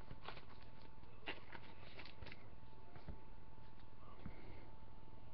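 Trading cards being handled: faint scattered rustles and light clicks over a faint steady whine.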